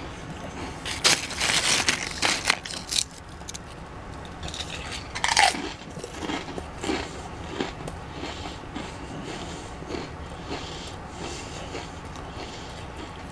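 Red Rock Deli kettle-cooked potato chips being bitten and chewed. Loud, crackly crunching comes in the first few seconds, with another sharp crunch about five seconds in, then quieter steady chewing.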